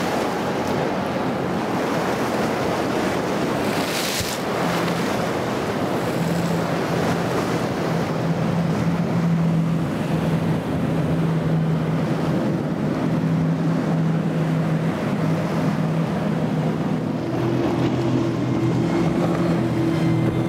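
Wind buffeting and water rushing under speeding powerboats. A steady outboard engine drone comes in about four seconds in and fills out near the end.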